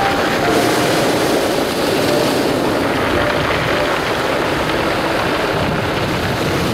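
Waves washing in and out over a beach of round, smooth pebbles: a steady rush of surf with the stones rattling as the water works between them.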